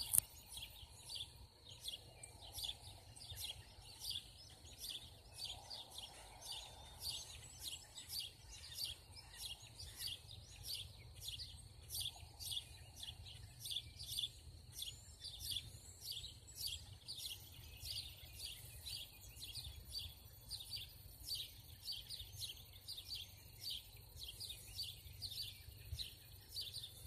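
Small birds chirping in the dawn chorus: a steady run of short high chirps, two or three a second, over faint low background noise.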